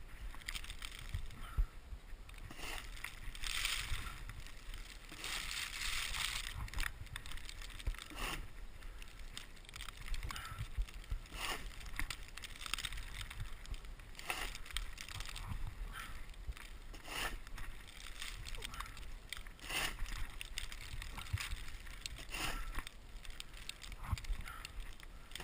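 Repeated crunching and scraping in snow, one stroke every one to three seconds, with a longer stretch of scraping a few seconds in, over a low rumble.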